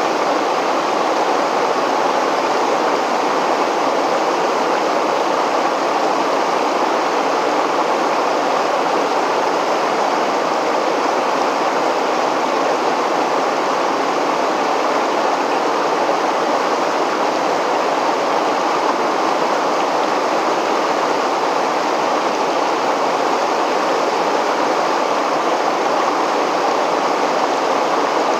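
River water pouring over a weir, rushing loudly and steadily with no change.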